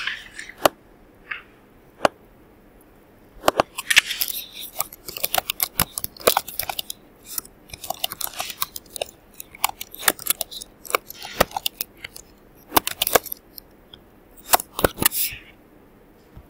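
Typing on a computer keyboard: quick, irregular runs of key clicks, with a few single clicks in the first couple of seconds.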